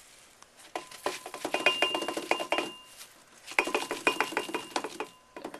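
Crushed eggshell chips pouring through a paper cone into a metal electrical conduit pipe, clinking and rattling as they fall, with the pipe ringing. It comes in two spells of rapid clicks.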